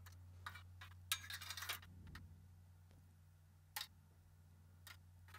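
Faint clicks and a short scratchy stretch as a steel combination square is shifted on 50 by 50 steel trunking and a marker pen draws marking lines along it. The clicks come singly, with the scratchy stretch about a second in. A low steady hum runs underneath.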